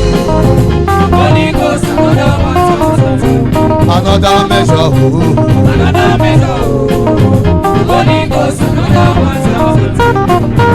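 Upbeat band music led by plucked guitar lines over a steady beat.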